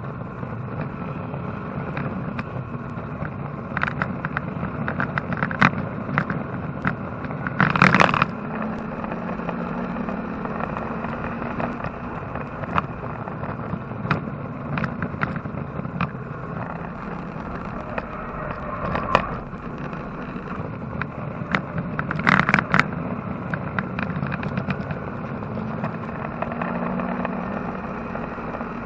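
Porsche 944 race car with a swapped-in Chevrolet engine running at speed on track, heard from inside the cabin: steady engine and road noise with a low drone. Sharp knocks and rattles come several times, the loudest about eight seconds in and again around twenty-two seconds.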